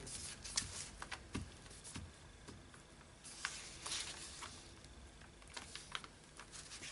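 A glue stick rubbed over a paper journal page, with light paper rustling and a few small taps and clicks.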